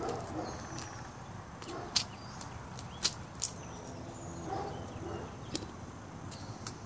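A hen's beak striking the concrete as she pecks at a lizard: a few sharp taps, the loudest about two, three and three and a half seconds in, over soft low clucking.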